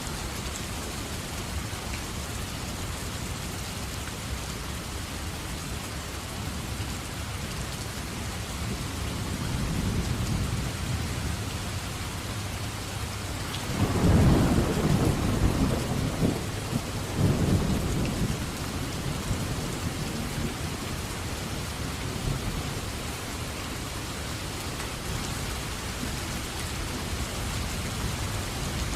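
Steady heavy rain with thunder: a low rumble builds softly, then about halfway through a louder peal of thunder rumbles in two surges for a few seconds before fading back under the rain.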